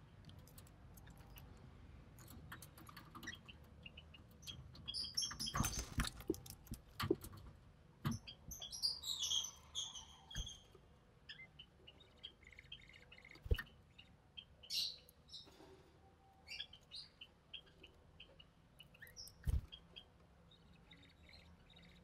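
Budgerigars chirping and squeaking in short, high bursts, busiest a few seconds in and again past the middle, with several sharp knocks, the loudest near the middle and near the end.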